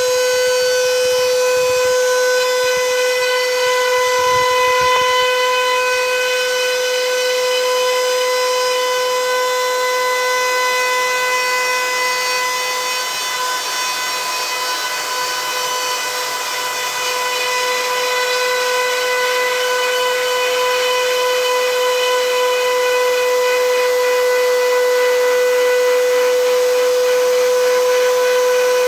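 Router spindle of a homemade CNC machine running at high speed with a steady high whine, its bit milling a flat pass along a walnut log. The whine dips slightly in loudness midway, then comes back up.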